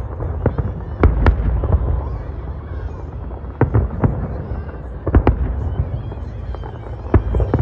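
Fireworks display: aerial shells bursting in sharp bangs at irregular intervals, several coming in quick pairs, over a steady low rumble.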